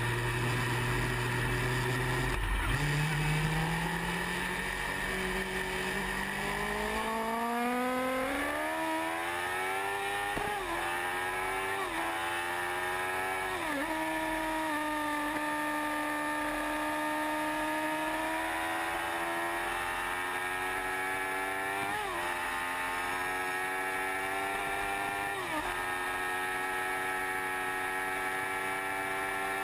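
Sport motorcycle engine accelerating hard at speed. Its pitch climbs through each gear and drops back sharply at every upshift, several times from about ten seconds in.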